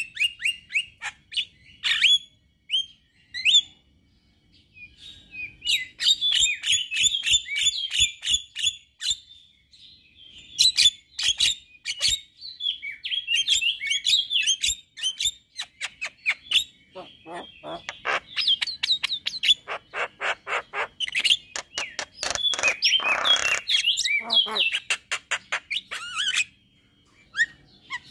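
Male Javan myna (jalak kebo) singing a long chattering song of rapid clicks and sharp whistled notes in several runs, with short pauses about 4 seconds in and near the end. About 23 seconds in there is one harsher, raspy squawk.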